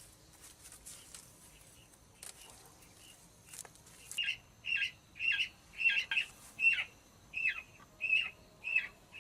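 A bird calling: a short chirp repeated about one and a half times a second, starting about four seconds in after a few faint clicks.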